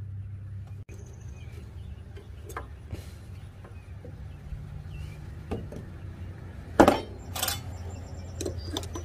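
Steel planer blade and clamping hardware clinking as they are handled: a few light taps, then two sharp metallic clinks about seven seconds in, over a steady low hum.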